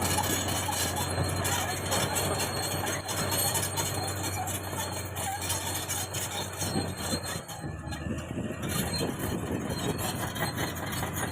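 Heavy diesel machinery running steadily, with short metallic squeals scattered through; the low engine hum drops away about seven seconds in.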